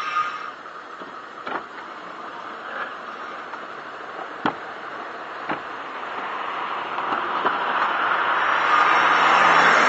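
Metallic scraping squeal from a Lexus LS460's wheel as the car rolls, which the owner takes for the brake rotor rubbing against its dust cover after the suspension stroked over a grating. Quieter with a few sharp clicks at first, then rising steadily over the last few seconds.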